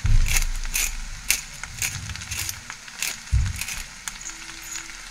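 Black peppercorns being freshly crushed over the fried rice: short crunching cracks about twice a second, with a low thump at the start and another a little past three seconds in.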